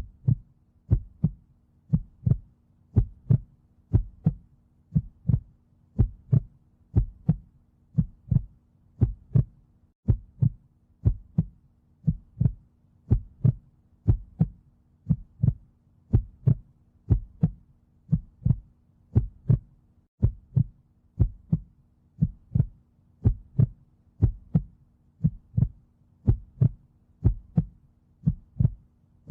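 Heartbeat, a steady lub-dub: a pair of low thumps about once a second, over a faint steady hum.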